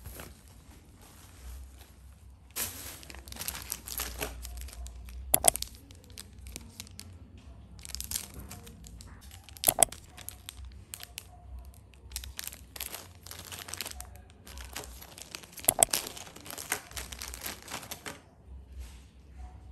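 Thin plastic bags and packaging crinkling in bursts as they are handled, with three sharp clicks standing out, about five seconds, ten seconds and sixteen seconds in.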